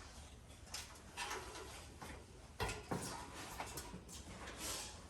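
Irregular clicks, knocks and short scrapes as a fitting is worked loose and pulled off a bus roof, with a sharper knock a little past halfway.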